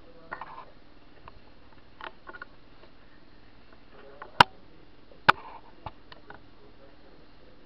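Hands handling a small camera: scattered light taps and rubbing, with two sharp clicks a little under a second apart about halfway through.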